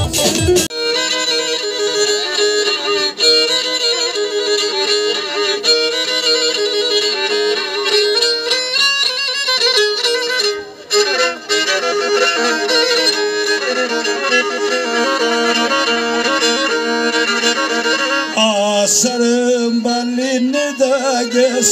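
Instrumental break of a Turkish folk song (türkü) played by a band between sung verses; the melody line changes about three-quarters of the way through.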